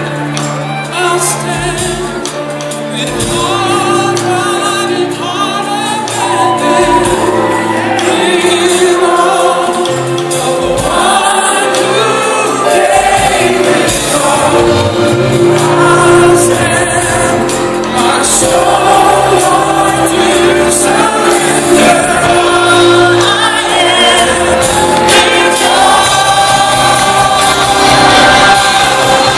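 Live Christian worship music: a group of singers on microphones singing together over an amplified band.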